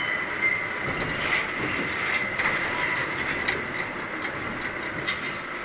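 Articulated lorry driving slowly, its engine and road noise heard from inside the cab, with a steady faint high whine and occasional light ticks.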